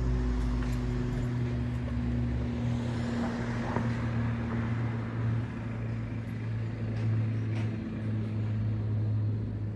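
Airbus A400M's four Europrop TP400 turboprop engines droning overhead as the aircraft climbs: a steady, low propeller hum made of several level tones. The deepest rumble drops away about two and a half seconds in.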